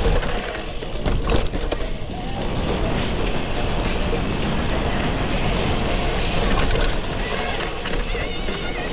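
Gravel bike rolling fast over a dirt and gravel trail: steady tyre noise from Panaracer GravelKing SS 38 mm tyres, with sharp rattles of the bike over bumps about a second in. A brief wavering high squeak comes near the end.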